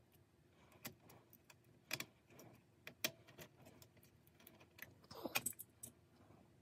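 Irregular light clicks and knocks of small parts being handled while working on a reel-to-reel tape recorder. The sharpest come about one, two and three seconds in, with a louder cluster just past five seconds.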